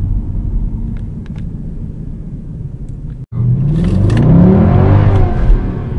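Mercedes C63 AMG engine heard from inside the cabin, a steady drone while cruising. After a brief break in the sound about three seconds in, it comes back louder under hard acceleration, its note rising and then falling, and eases off near the end.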